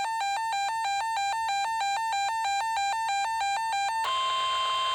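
Electronic weather-alert tones: a two-pitch warble flipping rapidly between a lower and a higher beep for about four seconds, then a single steady high tone near 1050 Hz, the NOAA Weather Radio warning alarm tone that precedes a warning message.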